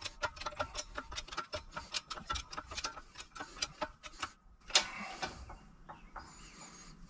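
Shop press forcing a Del-A-Lum bushing into a C4 Corvette upper control arm, giving a steady run of rapid clicks, about five a second. The clicks stop about four seconds in, and one louder click follows just before five seconds.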